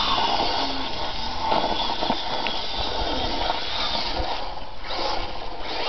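Traxxas 1/16 E-Revo VXL radio-controlled truck driving over loose dirt, its brushless electric motor running under a steady noisy hiss.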